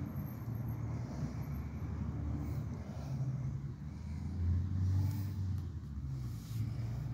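Low rumble of distant road traffic, swelling a little about two-thirds of the way through.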